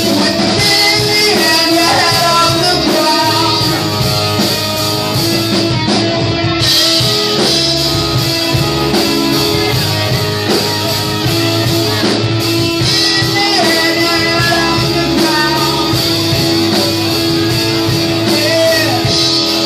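Live rock band playing loud, with electric guitars and a singer's voice over them.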